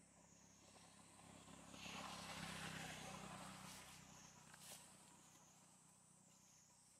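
Faint outdoor ambience: a vehicle passes in the distance, its low hum swelling and fading over a few seconds, over a steady high insect trill that wavers slowly up and down.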